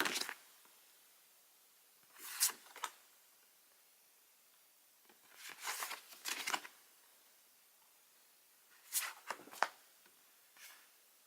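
Paper postcards being handled and slid against each other: short dry rustles, about five in all, with quiet between them.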